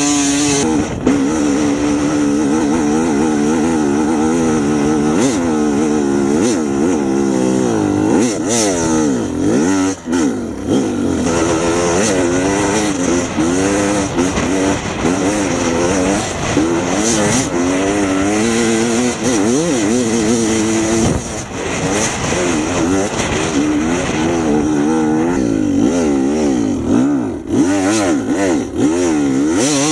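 A vehicle engine running hard with constantly changing revs, its pitch rising and falling over and over, every second or so, with brief drops in level a few times.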